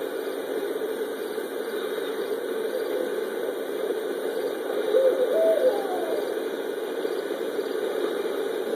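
Barred owl hooting briefly about five seconds in: a short run of notes ending in a falling slur, over a steady low hum.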